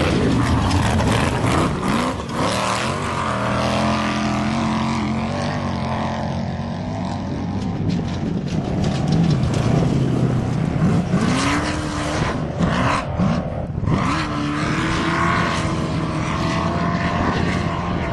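Off-road race vehicles' engines running hard as they pass, pitch rising and falling with throttle and gear changes, with several quick rising revs past the middle.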